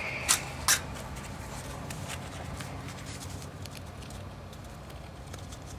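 A steel screwdriver picking and scraping at salt deposits inside a Johnson 15 hp outboard's carburetor body: two sharp metal clicks near the start, then light scattered ticks.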